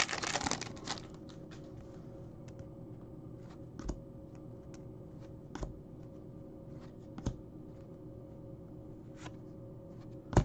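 Foil wrapper of a pack of hockey trading cards crinkling as it is torn open, then soft clicks every second or two as the cards are slid and flipped one by one over a faint steady hum.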